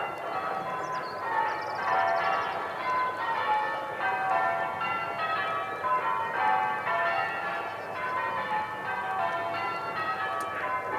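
Church bells ringing, many bells struck in turn at different pitches in a continuous run of overlapping strikes.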